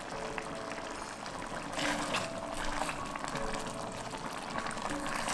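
Wet, crackly liquid sounds from the red wine braise, under soft background music with short held notes; the liquid grows a little louder about two seconds in.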